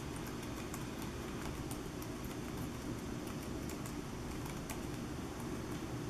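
Small keys of the OneGx1 mini laptop's keyboard clicking lightly and irregularly as it is thumb-typed, several presses a second, over a steady low background rumble.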